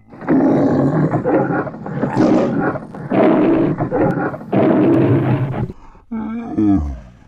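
A man's imitation of a lion's roar, done as a parody of the MGM lion logo: four long, rough roars in a row, then a shorter roar that drops steeply in pitch near the end.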